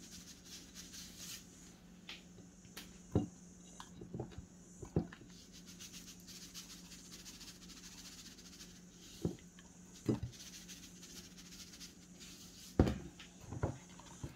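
Soft handling sounds from seasoning a raw mullet on a plate: a few scattered light knocks and taps as the fish and the seasoning shakers are handled on the plate and the wooden table, over a faint steady hum.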